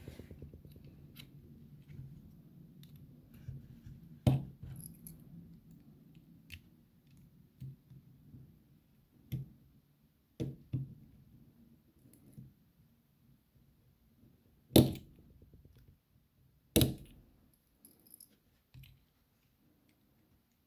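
Small metal clicks and taps of tools working the retaining circlip off a Tesa TE5 lock cylinder, with four louder sharp clicks spread through.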